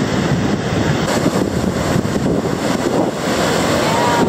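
Rough surf breaking and washing up the beach, with strong wind buffeting the microphone into a steady loud rush.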